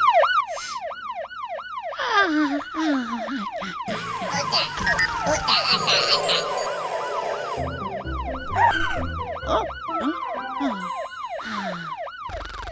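Cartoon siren sound effect: a fast, repeated rising-and-falling yelp, about three to four sweeps a second, over background music.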